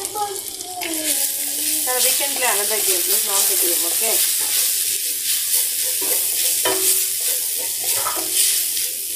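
Onion, curry leaf and spice masala sizzling in oil in a stainless steel wok while being stirred with a silicone spatula. The sizzle gets louder about a second in, with a few sharp knocks of the spatula against the pan later on.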